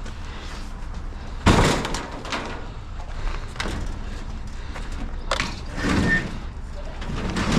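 A heavy scrap appliance being shoved and shifted: a loud bang about a second and a half in, then scraping and knocking, with another bang a little after five seconds.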